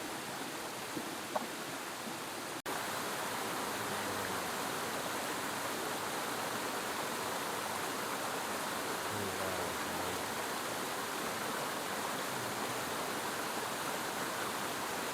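Waterfall splashing steadily, an even rushing hiss, with a brief dropout about two and a half seconds in, after which it is slightly louder.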